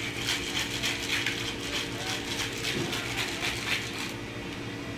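Ice rattling in a cocktail shaker as a margarita is shaken hard, about four shakes a second, stopping about four seconds in.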